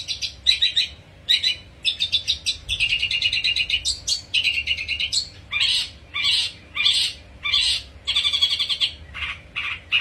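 Caged songbird singing long strings of fast rattling trills and chirps. One unbroken rattle runs for about two seconds, followed by shorter phrases about half a second apart.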